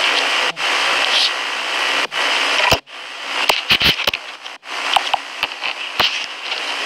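Steady, loud hiss broken by short dropouts about every second and a half. About three seconds in it turns fainter, with scattered sharp clicks and crackles.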